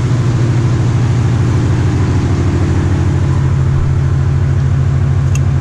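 1984 Chevy C10's mildly built 350 small-block V8 running at a steady idle just after being coaxed into starting, which the owner suspects is a little flooded.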